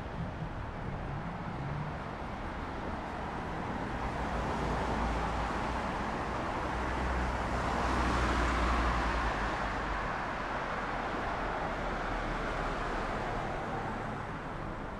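A car driving past on the street: its engine and tyre noise rise to a peak about eight seconds in, then fade.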